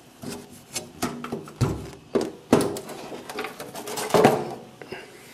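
Sheet-metal front cover of a solar grid-tie inverter being handled and swung open: a string of knocks and clunks, some ringing briefly, the loudest about two and a half and four seconds in.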